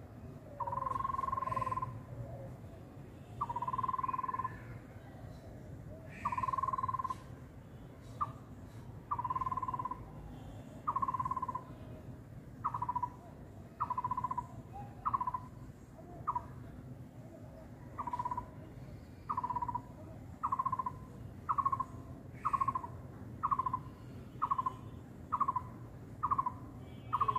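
A bird calling over and over, one whistled note repeated: long notes at first, then shorter and quicker ones, about one a second.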